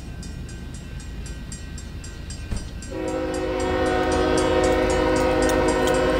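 Freight locomotive's air horn sounding a long, steady chord of several notes, coming in about three seconds in over a low rumble from the approaching train.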